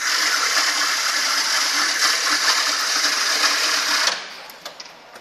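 A small electric motor appliance running loudly and steadily, switched on suddenly and cutting off about four seconds in.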